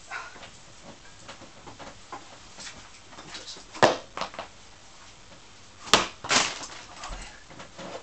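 Quiet room tone broken by a few short, sharp knocks and clicks: two just before the middle and two more about six seconds in.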